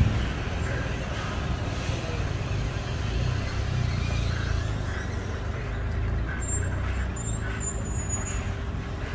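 Heavy-haulage truck's diesel engine running as it pulls a 176-tonne tank on a multi-axle trailer at walking pace, a steady low rumble, with a short thump right at the start.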